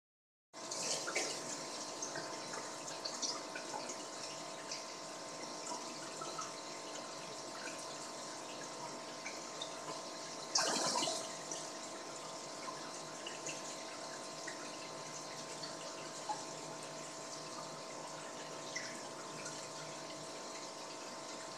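Air-driven aquarium sponge filter bubbling: a steady trickle of bubbles popping and splashing at the water surface, over a steady hum. About halfway through there is a brief louder rush of noise.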